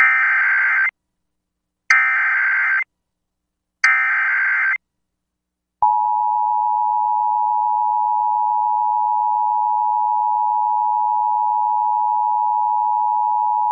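Emergency Alert System alert tones. Three short bursts of screechy digital data (the SAME header), each just under a second long and about two seconds apart, are followed nearly six seconds in by a long, steady attention tone.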